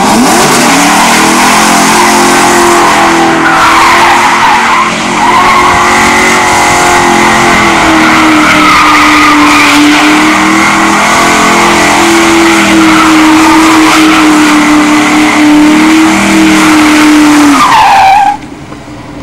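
Ford Mustang doing a smoky burnout in circles: the engine is held at high, steady revs while the rear tyres spin and squeal on the asphalt. The sound drops off abruptly near the end.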